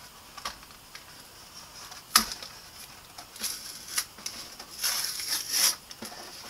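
Retail packaging being handled by hand: scattered light clicks and crinkly rustling, with one sharp click about two seconds in and longer bouts of rustling in the second half.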